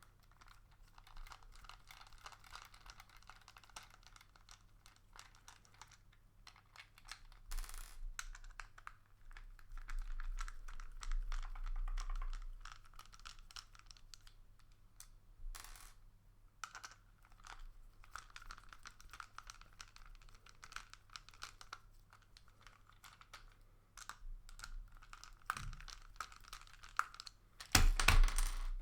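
Phillips screwdriver unscrewing small screws from a plastic toy car chassis: irregular small clicks and scraping as the driver turns, with a louder clatter of plastic parts near the end.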